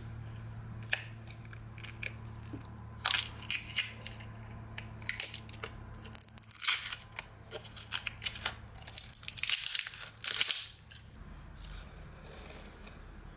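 A roll of foil washi tape being handled and peeled: scattered clicks and taps, then short scratchy rasps and crinkles as the tape is pulled off the roll, densest about two-thirds of the way through. A faint low hum runs underneath.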